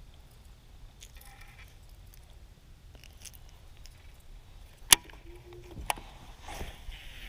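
Sharp clicks from the baitcasting reel and rod being worked through a cast, the loudest about five seconds in and another a second later. Between them the electric trolling motor gives a brief steady hum.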